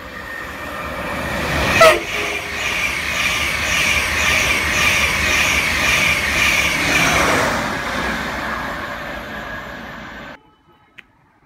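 An express passenger train passes through at speed. Its rush of wheels and air builds up, with a short, very loud burst about two seconds in. Then comes steady rolling noise with a regular rhythmic clatter, which fades away and cuts off suddenly about ten seconds in.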